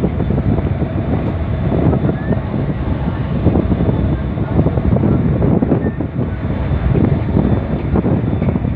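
Wind buffeting the microphone: a loud, steady, gusting rumble with no breaks.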